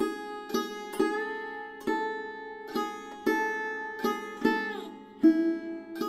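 Sarod playing slow single plucked notes, some sliding in pitch, over a steady drone.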